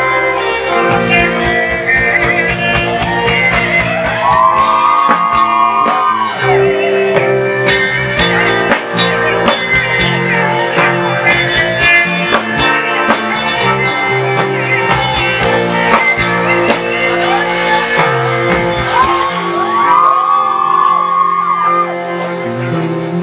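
Live band playing an instrumental passage: drum kit, bass and guitars under a bending lead melody that swoops up and holds twice, about four seconds in and again near the end.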